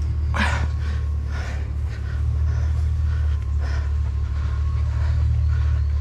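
Heavy metal stove dragged across grass in short swishing pulls, about one a second, over the steady low rumble of an idling truck engine.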